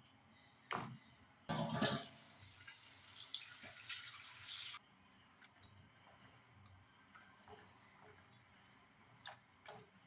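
A kitchen tap runs for about three seconds and is turned off abruptly, with a knock just before it and scattered small clicks and taps afterwards.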